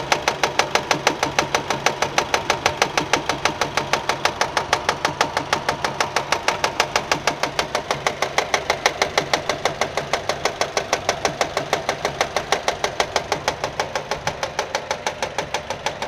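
Nissan Micra 1.2 petrol engine running with a steady, rapid knocking, about six knocks a second. The owner later found the engine itself sound: the noise came from a fraying alternator belt slapping against the metal body as it turned.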